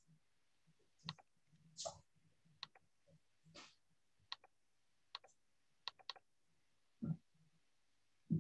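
Faint, irregular computer clicks, about ten scattered over several seconds, from a mouse and keyboard being worked to bring up a shared screen. A couple of softer, duller knocks come near the end.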